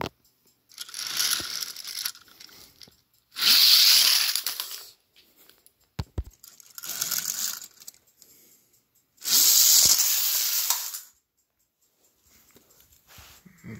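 Plastic toy engines rolling along plastic push-along race track, four runs of a rushing rattle lasting one to two seconds each, with a short knock about six seconds in.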